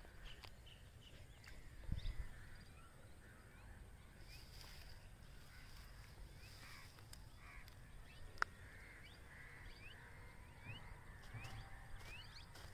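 Quiet outdoor ambience with scattered short bird chirps. There is a soft low thump about two seconds in and a single sharp tick past the middle.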